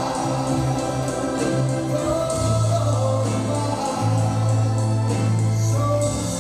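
Dance music with a choir singing over long held low bass notes, which come in about two and a half seconds in.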